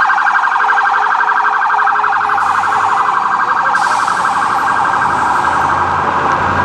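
Police car siren on a rapid warble, its pitch swinging quickly up and down over and over.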